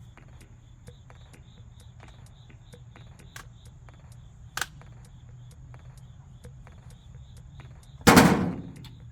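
One loud, sharp knock near the end that rings briefly, and a lighter click about halfway through. Both sound over faint high ticks repeating a few times a second and a low hum.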